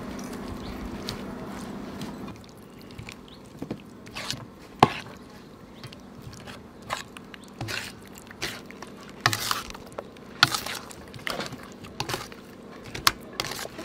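Hands squeezing and turning raw chicken drumsticks in thick white batter in a metal bowl: irregular wet squelches, slaps and clicks. A low steady hum stops about two seconds in.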